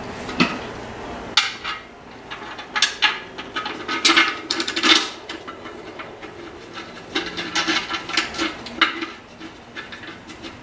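Stainless steel bolts and handle parts clinking and rattling against a Weber Q1200 grill lid as the handle is fitted: a run of irregular sharp metallic clinks and taps.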